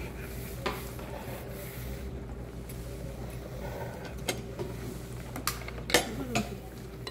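Utensils clinking against dishes at a meal table: a few separate knocks, the sharpest about six seconds in, over a steady low hum.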